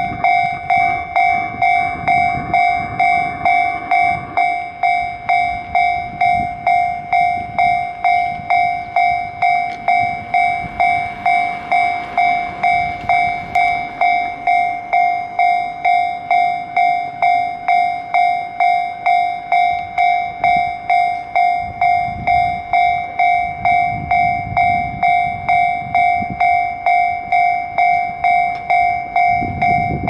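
Japanese railway level-crossing warning bell ringing steadily, about two strikes a second, while the crossing signals flash and the barriers are down. It is the sign that a train is approaching.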